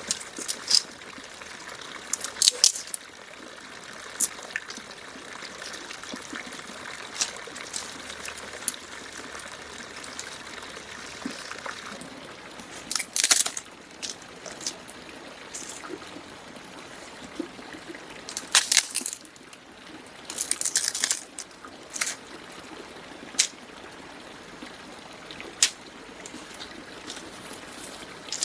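Steady running water, like a stream, with frequent brief sharp sounds over it, the loudest about halfway through and again about two-thirds of the way through.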